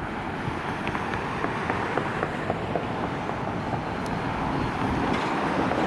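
Jet engines of a Delta Air Lines Airbus A320 running at taxi power: a steady rushing noise that builds a little, with crackles of wind buffeting the microphone.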